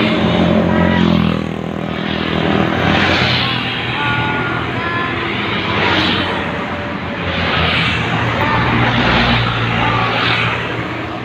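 Small motorcycle engine running on the move, with wind rushing over the phone's microphone in gusts that swell and fade every second or two.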